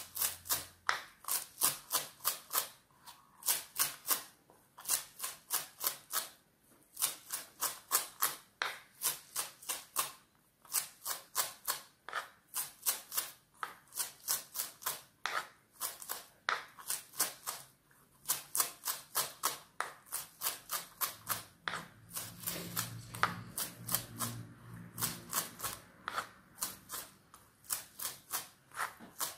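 Kitchen knife chopping fresh green herbs on a wooden cutting board: quick sharp knocks, about three a second, in runs with brief pauses.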